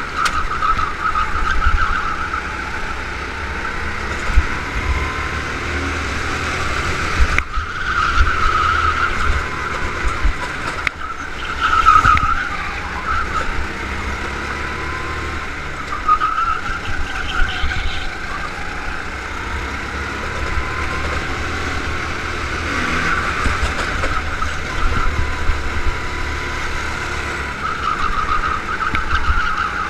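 Go-kart engine running hard on a lap, its pitch rising and falling through the corners, heard from the onboard camera on the kart. Tyres squeal several times in the bends, over a steady low rumble.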